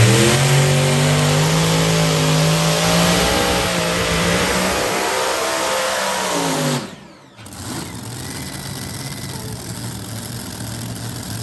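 Multi-engine modified pulling tractor at full throttle dragging the weight sled. The engines' pitch climbs, then sags as the sled loads them down. About seven seconds in the throttle is chopped and the sound drops away sharply, then the engines settle to a quieter steady idle.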